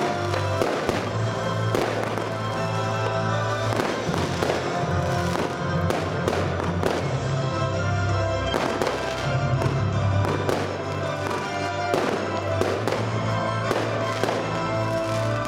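Fireworks going off: repeated sharp bangs and crackle at irregular intervals as shells and comets burst, over loud music with sustained chords and a steady bass.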